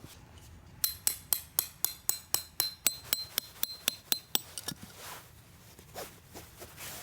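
A quick, even run of about fifteen sharp metallic clinks, roughly four a second, each with a short high ring. It starts about a second in and stops after about three and a half seconds, followed by a few softer knocks.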